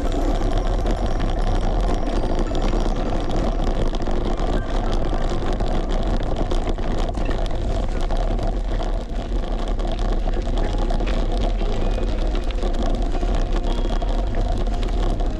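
Steady wind rushing over a bike-mounted camera microphone that has no wind suppression, with the low rumble of the bicycle rolling along.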